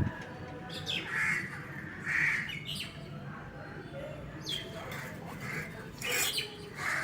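Birds calling: several short calls, the loudest about one and two seconds in, over a steady low rumble that stops abruptly at the end.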